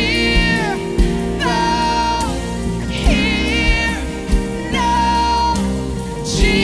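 Christian worship song: a voice singing long held notes over sustained chords, with a drum hit about every second or so.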